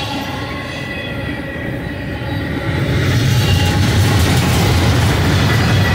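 Double-stack intermodal freight train rolling past, its steel wheels rumbling and clattering over the rails, with a thin high wheel squeal in the first half. The rumble grows louder about three seconds in.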